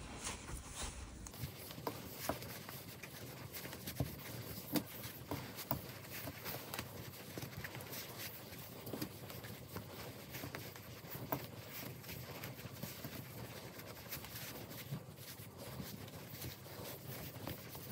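Faint rustling and scattered soft taps of hands working giant chunky yarn, pulling thick loops through stitches by hand.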